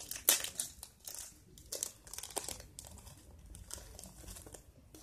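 Small plastic packet of sequins crinkling and crackling as it is squeezed and pulled at by hand to open it, in irregular bursts that are busiest in the first half.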